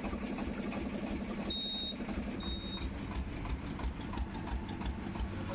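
Cabin noise of a Toyota Hyryder mild-hybrid SUV cruising at about 90 km/h: a steady rumble of engine and tyres. Two short, high electronic beeps sound about a second and a half in, just under a second apart.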